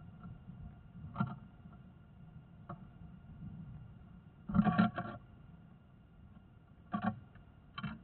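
Dull knocks and scuffles on a wooden nest box, heard from inside: one about a second in, a loud cluster of several knocks about halfway through, and two more near the end, over a faint steady hum.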